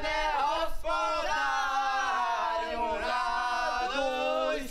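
Several voices singing a slow, chant-like melody together, the notes held and gliding without a break.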